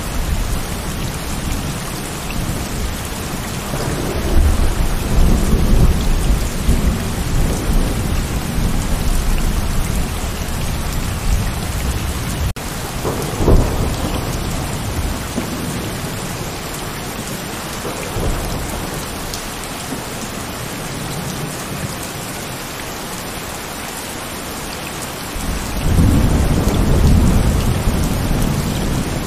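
Heavy rain falling steadily, with thunder rumbling three times: a few seconds in, again about halfway through right after a momentary dropout, and near the end.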